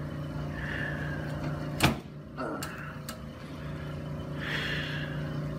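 A steady low mechanical hum, like a small electric motor, with one sharp crack about two seconds in and soft breathy noise near the end.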